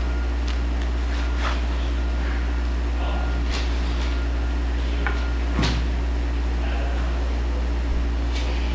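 Steady low electrical mains hum with a few faint clicks and rustles over it; the most distinct click comes a little past halfway.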